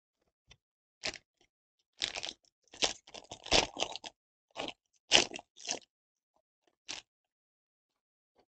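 Foil wrapper of a Panini Absolute Football jumbo pack crinkling and tearing as it is ripped open by hand, in a series of short crackly bursts, the loudest a little after three and five seconds in.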